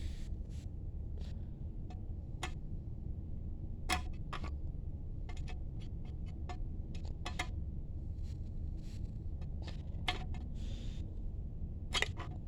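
Handling noise: irregular light clicks and taps of small hard objects being moved, about a dozen in all, the sharpest about four seconds in and near the end, over a steady low hum.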